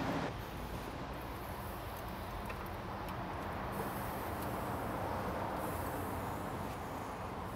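Steady low background hum of outdoor ambience, even throughout, with no distinct knocks or clanks.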